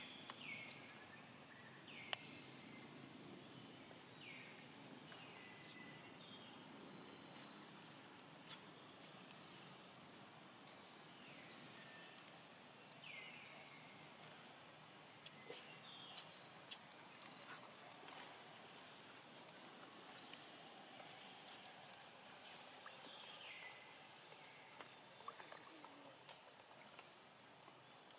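Faint outdoor ambience. Short high animal calls, each falling quickly in pitch, come every few seconds, with a few soft clicks.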